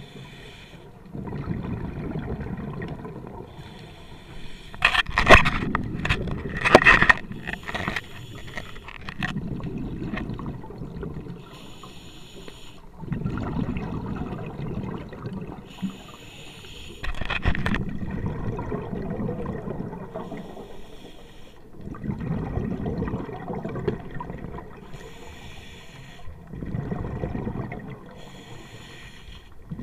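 Scuba regulator breathing heard underwater: a short hiss of each inhalation, then the rumble of exhaled bubbles, repeating about every four seconds. A few sharp knocks come several seconds in and another just past the middle.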